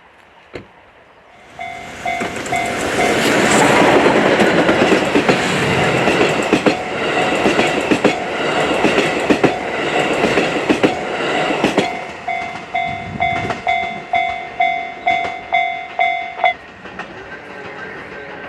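Steam locomotive D51 200 hauling its passenger coaches past at speed, loud from about a second and a half in. Near the end the coach wheels clack rhythmically over the rail joints, together with a pulsing alarm tone about twice a second that stops shortly before the end.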